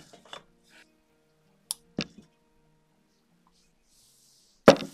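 Small handling sounds at a workbench: two sharp clicks about two seconds in, then a short hiss and a loud knock near the end as a bottle is handled.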